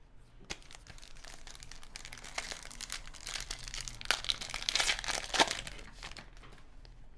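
A plastic trading-card pack wrapper being crinkled and torn open by hand: a few seconds of dense crackling that gets louder past the middle, then dies down near the end.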